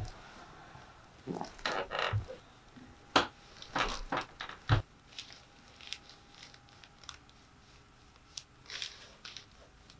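Handling noises of a patient being positioned on a chiropractic table: scattered rustling and crinkling with sharp clicks, and two dull thumps in the first half.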